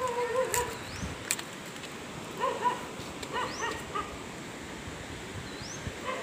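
Short pitched animal calls, one near the start and a cluster about two and a half to four seconds in, with a high rising chirp repeating every two to three seconds and a few sharp clicks.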